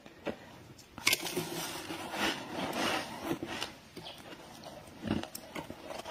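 Crunching of freezer frost: a sharp click about a second in, then a couple of seconds of gritty crunching, and another short crunch about five seconds in.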